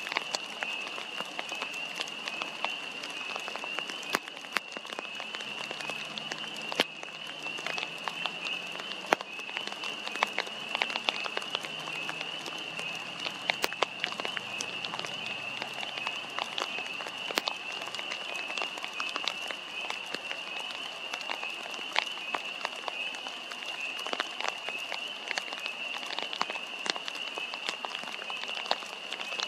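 Rain falling, with irregular single drops ticking sharply close to the microphone, likely on the poncho covering the camera. Behind it runs a steady high-pitched drone.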